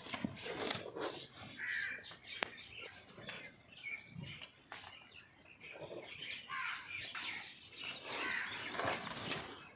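Birds calling in the background, crows among them, with scattered bits of noise and a sharp click a couple of seconds in.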